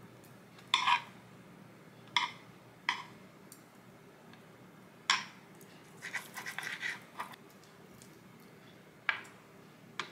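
Kitchen knife cutting smoked salmon against a cutting board, with metal chopsticks: a few single short knocks, then a quick run of cuts about six seconds in. A faint steady hum runs underneath.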